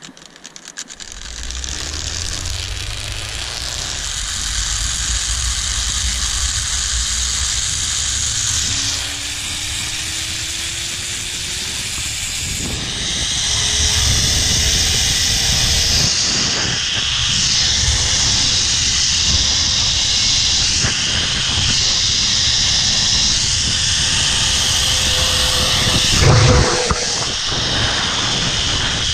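Zipline trolley pulley rolling along a steel cable, a steady whirring rush mixed with wind on the microphone. A faint whine rises in pitch as the rider picks up speed, the rush grows louder about halfway through, and there is a brief knock near the end.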